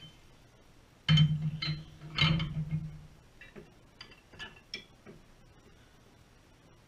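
Metal clanking twice, each hit with a short ringing tail, then a run of light clicks and taps from tools being handled.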